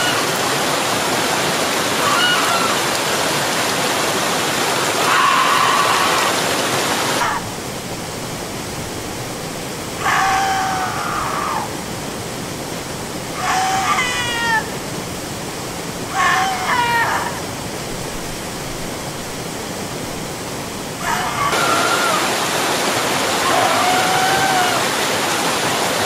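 Waterfall rushing steadily, with a person's voice over it in a series of separate screams and wails, each a second or two long with a falling, wavering pitch. The rush of water drops to a lower level for a long stretch in the middle.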